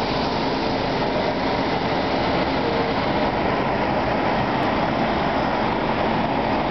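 Several portable diesel generators running with a continuous, even drone, supplying power while the electricity grid is shut down.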